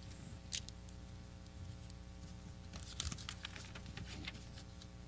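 Thin Bible pages being leafed through at a pulpit: faint papery rustles and soft ticks, one about half a second in and a cluster of them between about three and four and a half seconds.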